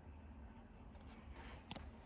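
Near silence: small-room tone with a steady low hum and a few faint clicks.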